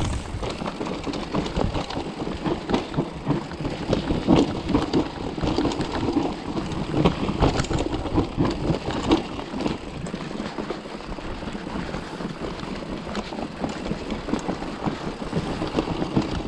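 Mountain bike riding over a rough stony trail: a continuous clatter of tyres on rocks and rattling bike parts, full of irregular knocks.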